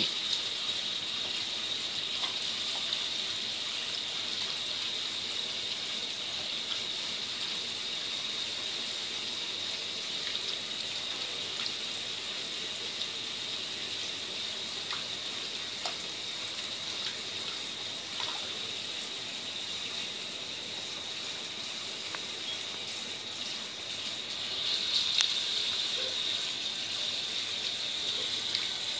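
Kitchen tap water running steadily into a ceramic bowl in a stainless steel sink as a raccoon washes it with its paws, with a few faint clinks. The splashing grows louder for a couple of seconds near the end.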